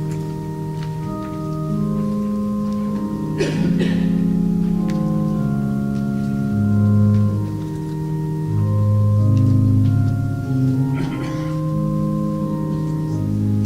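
Organ playing a hymn in slow, sustained chords that change every second or two, with two short bursts of noise about three and a half seconds and eleven seconds in.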